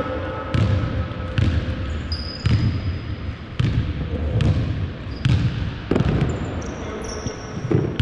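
A basketball bouncing on a hardwood gym floor in irregular thumps during play, with a couple of brief high sneaker squeaks in between.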